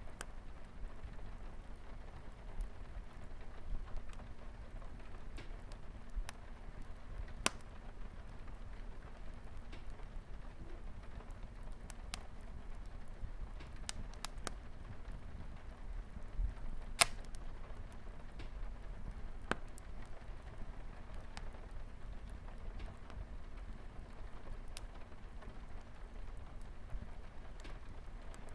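Wood fire crackling with scattered sharp pops, one louder snap a little past the middle, over a steady hiss of light rain on a window.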